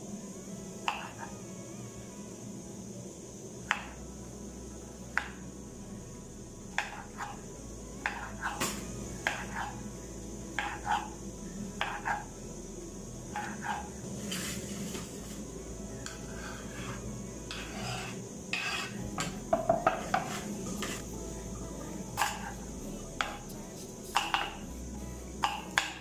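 Kitchen knife chopping tomatoes on a wooden chopping board: irregular sharp knocks of the blade hitting the board, coming faster and in quick clusters in the later part.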